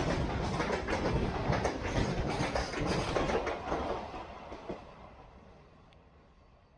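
Freight train wagons passing at speed, their wheels clattering over rail joints in quick, dense clicks. The last wagon goes by about four seconds in, and the rumble then fades steadily away as the train recedes.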